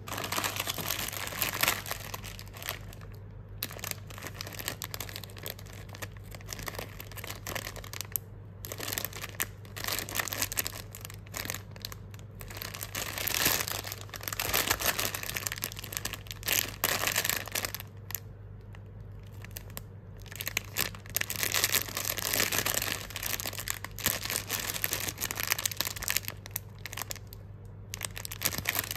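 Clear plastic bag crinkling in irregular bursts as it is handled, over a steady low hum.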